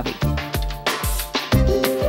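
Background music with a drum beat, low bass notes and sustained instrumental tones.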